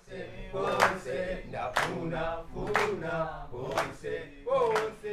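Choral singing with a sharp beat about once a second: music playing over the opening title.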